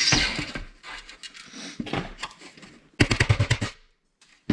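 Small metal parts and hand tools clicking and tapping as a brass insert is worked out of a receipt printer part. About three seconds in comes a quick rattling run of about ten sharp clicks, lasting under a second.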